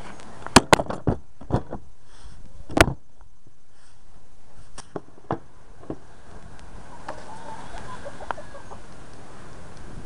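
Sharp clicks and knocks from hands and camera handling the ATV's plastic body and seat, several in quick succession in the first three seconds and a few more a little later, over a steady background hiss. The engine is not running.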